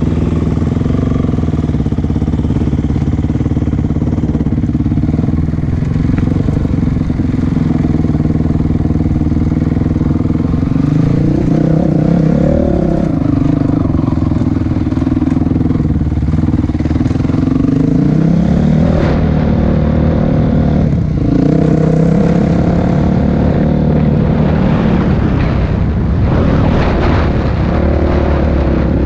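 A motor vehicle's engine running under way, its pitch rising and falling with the throttle several times. Knocks and rattles come through in the second half.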